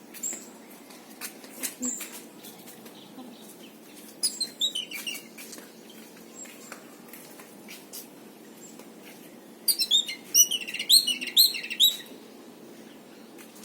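High-pitched animal chirping: two rapid runs of quick, downward-sliding chirps, about four seconds in and again from about ten to twelve seconds, with scattered single chirps and clicks between them.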